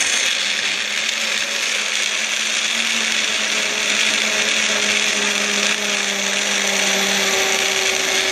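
Single-serve personal blender running continuously, its motor whirring steadily as it blends banana, milk, crushed ice and protein powder into a shake; the motor's tone changes a little partway through.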